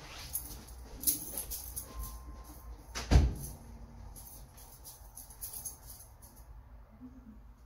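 Irregular knocks and clicks, with one loud thump about three seconds in; the clicks stop about six and a half seconds in.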